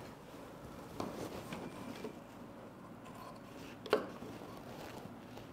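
Cloth being handled and pinned on a table, a soft rustling with two sharp clicks, one about a second in and a louder one near four seconds.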